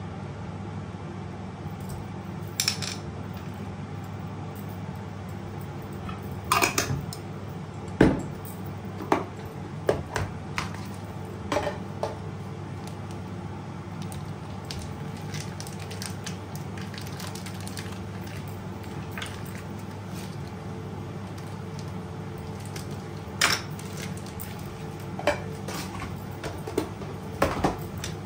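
Kitchen-worktop clatter: plastic food containers and a plate being moved and set down, with scattered knocks and clinks and plastic packaging handled. The knocks bunch together a few seconds in and again near the end, over a steady low hum.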